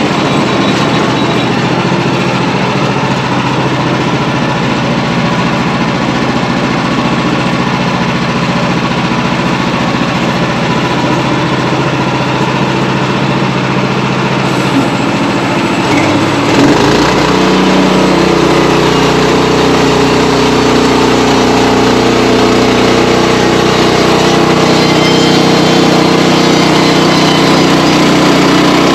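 Portable sawmill's gasoline engine running steadily. About two-thirds of the way through, its note drops and settles lower and slightly louder.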